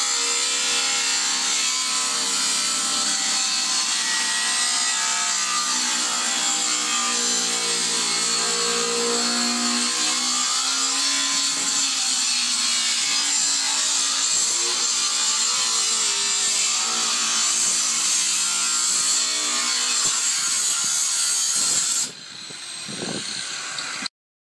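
A power tool running and cutting, its motor pitch wavering under load over a strong hiss of the cut. It stops abruptly near the end, and a weaker sound runs on for a couple of seconds before cutting off.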